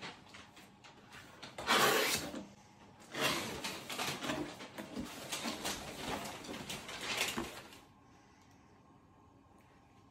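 Cardboard gift box being opened and handled, its lid lifted and slid, with scraping and rustling in several short bursts, the loudest about two seconds in. It goes quiet for the last couple of seconds.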